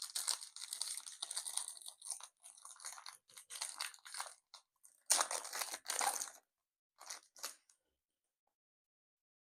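Foil wrapper of a Pokémon TCG Astral Radiance booster pack being torn open and crinkled, a dense crackling that swells louder a few seconds in and stops after about six seconds, followed by two brief rustles.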